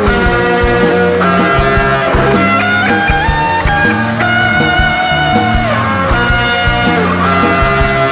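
Background rock music in an instrumental passage with no singing: a guitar lead plays long held notes that bend in pitch over a steady band backing.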